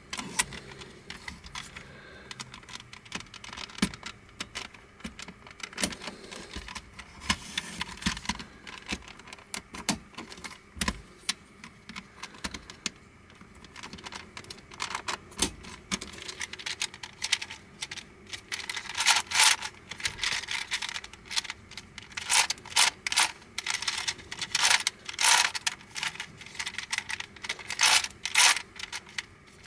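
Black plastic Crazy Octahedron Plus twisty puzzle clicking and clattering as its pieces are handled and turned. The clicks come in quick runs that grow louder and denser over the second half.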